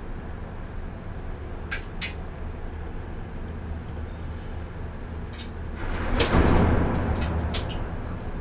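Container gantry crane machinery humming steadily, heard from the operator's cab, with a few sharp clicks and a rushing hiss that swells about six seconds in and fades away.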